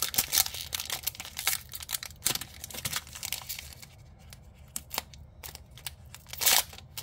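Foil trading-card booster pack wrapper crinkling and crackling in the hands as it is handled and worked open, with a louder burst of crackling near the end.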